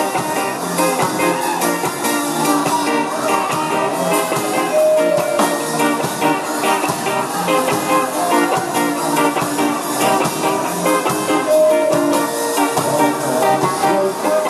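A band plays an instrumental passage with guitar and drums to a steady beat, with a few long held lead notes.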